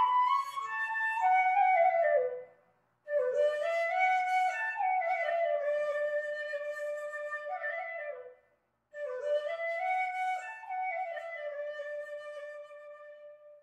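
Background music: a solo flute playing a slow, sliding melody in three phrases separated by short breaks, the last phrase fading out.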